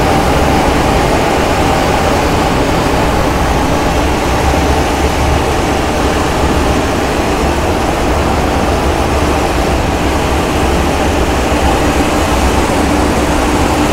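Three-phase electric mini rice dryer running: its blower fan and grain elevator make a steady mechanical hum with a faint steady whine in it, unchanging throughout.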